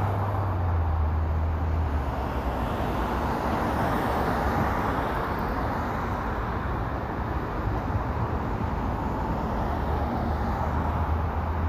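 Steady road traffic noise, a continuous rush of passing vehicles, with a low engine hum that fades after about two seconds and returns near the end.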